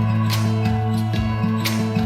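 Background music: guitar with a steady bass line and a light beat.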